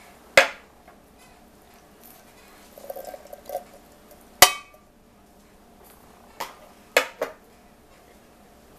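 A few sharp metal clinks and knocks on a stainless steel cooking pot, spread out, with a short rattle about three seconds in and the loudest knock about four and a half seconds in.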